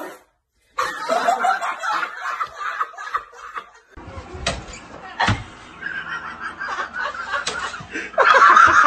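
People laughing, with two sharp knocks about halfway through.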